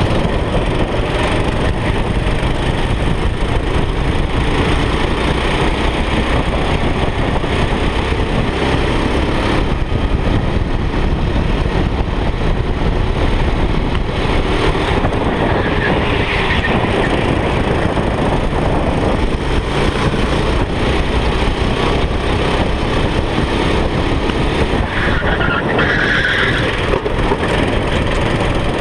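Go-kart engine running hard at racing speed, heard onboard with steady wind noise on the microphone, and two brief higher squeals, one about halfway through and one near the end.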